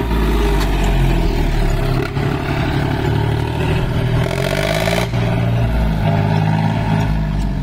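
John Deere 5036D tractor's three-cylinder diesel engine revving hard as the tractor is driven over rough ground, its pitch rising and falling several times. Two sharp knocks come about two seconds in and again about five seconds in.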